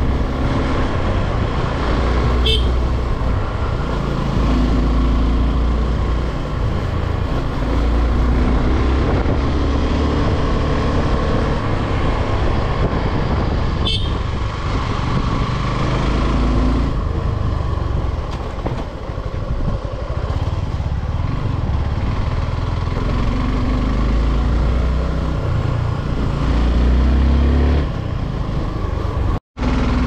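Suzuki motorcycle engine running under way on a climbing road, its pitch and level shifting with the throttle, with wind rushing on the microphone. There are two brief clicks, one early and one in the middle, and the sound cuts out for a moment near the end.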